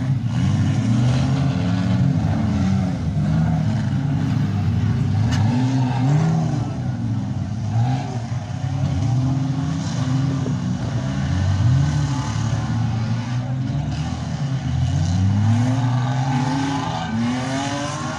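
Several demolition derby cars' engines running and revving at once, their pitches rising and falling over one another as the cars manoeuvre in the arena.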